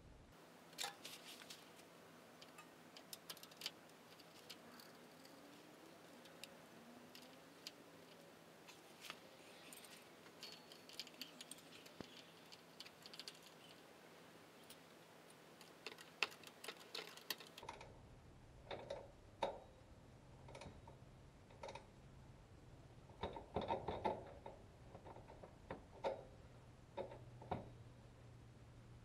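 Faint, scattered clicks and light metallic clinks of hand tools being worked on a vehicle's suspension parts. A steady low hum comes in about two-thirds of the way through.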